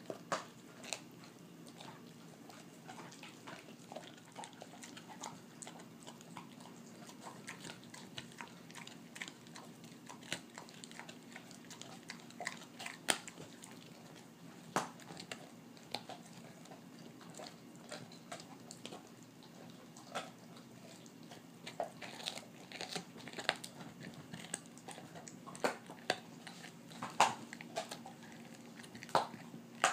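Golden retriever chewing a raw beef rib bone: irregular crunching and sharp cracks of teeth on bone, coming thicker and louder in the last third. A steady low hum runs underneath.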